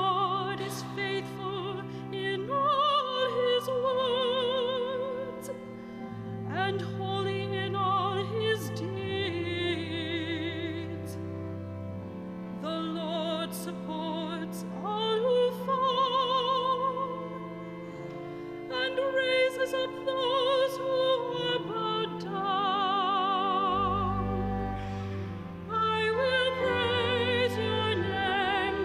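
A solo singer with strong vibrato sings slow phrases over sustained keyboard chords: a cantor singing the responsorial psalm at Mass.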